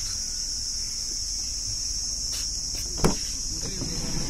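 Crickets chirping in a steady high-pitched chorus, with a single short knock about three seconds in.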